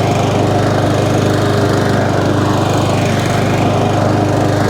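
Mountfield SP454 lawn mower's petrol engine running at a steady speed, with no knocking from underneath the deck: the fault has been cured. The engine is still cold and has not been run for a while.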